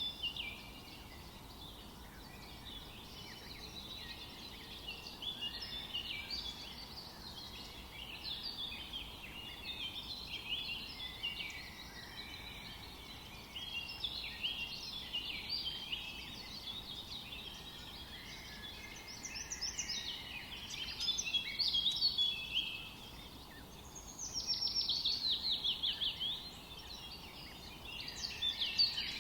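Several small songbirds chirping and singing at once, a steady chorus of short overlapping calls. Near the end one bird gives a louder rapid run of falling notes.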